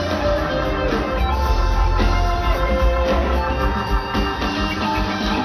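Live rock band playing through a concert PA: a drum kit and heavy bass under sustained melodic guitar lines that step from note to note, recorded from within the crowd.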